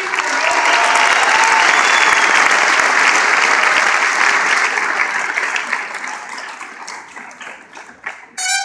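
Theatre audience applauding, loud at first and dying away over the last few seconds. Music strikes up again just before the end.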